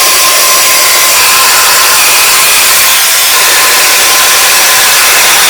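Drybar Butter Cup hair dryer running steadily at full blast close by, rough-drying hair: a loud, even rush of air with a thin steady whine.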